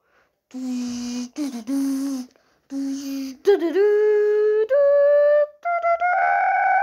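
Wordless cartoon-voice humming: three short level notes with a breathy hiss, then a wavering note, then held notes that step up in pitch to a long high note near the end.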